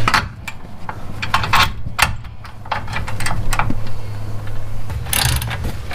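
Scattered metallic clicks and knocks of hardware and hand tools as a front shock absorber is fitted in place, with a denser run of clatter about five seconds in. A steady low hum runs underneath.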